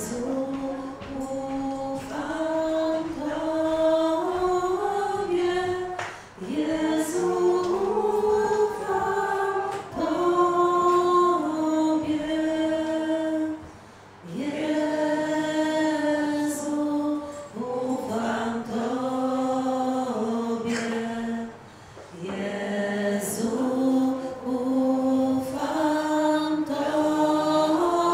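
A group of voices singing a religious song in phrases of a few seconds, with brief pauses for breath between them.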